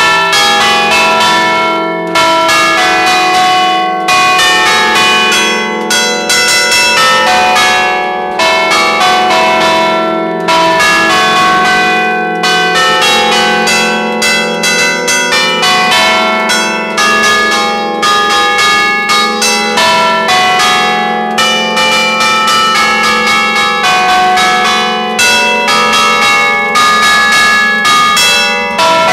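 Church bells in a belfry rung close up, several bells struck in quick succession so that their ringing overlaps in a dense, rhythmic peal that starts suddenly.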